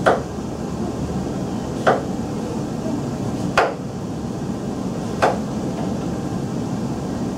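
Chef's knife slicing through summer squash into rounds and knocking on the cutting board, four single strokes about 1.7 seconds apart.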